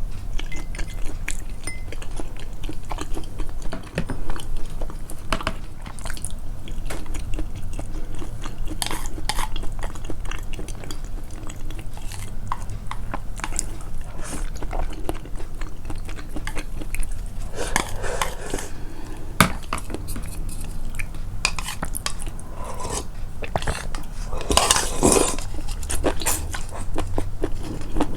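Close-miked eating sounds boosted in editing: chewing and biting, with eating utensils clicking and knocking against dishes many times over a low steady hum.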